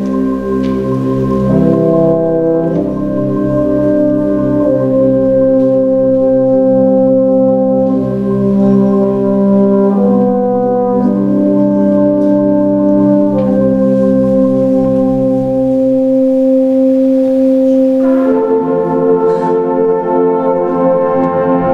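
Fanfare band of brass and saxophones playing long, slowly changing held chords in a slow passage. The low bass notes drop out about three quarters of the way through, and a brighter, fuller chord comes in near the end.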